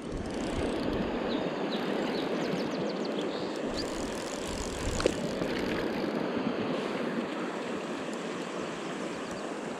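Mountain river water rushing, a steady close rush that comes in suddenly at the start and holds throughout.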